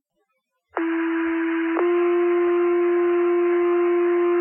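Two-tone sequential fire-pager alert over a dispatch radio channel, with radio hiss behind it: a steady low tone held about a second, then a slightly higher tone held about three seconds. It sets off the Wingham fire station's pagers ahead of a cancellation page.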